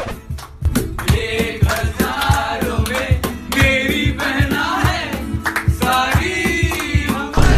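A song: singing voices over a steady beat.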